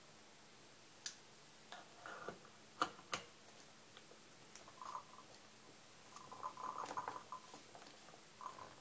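Clicks and light knocks of metal and china as a portafilter is fitted into a Krups home espresso machine and the cup is handled beneath it, with a short rattling scrape later on, which fits the portafilter being twisted into the group head. The pump is not running.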